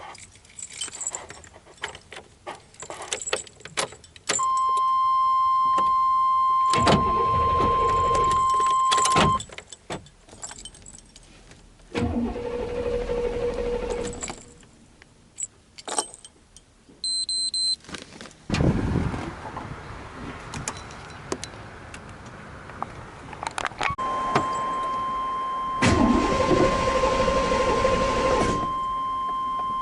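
Keys jangling, then a 1997 Chevy C1500's 5.7 L V8 cranked on the starter in several tries of a few seconds each, never catching: it cranks but won't start because of a failed fuel pump. A steady high warning tone sounds during the first and last tries.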